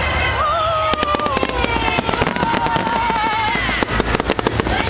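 Fireworks bursting and crackling in rapid succession, over loudspeaker music in which a long, wavering note is held for about three seconds.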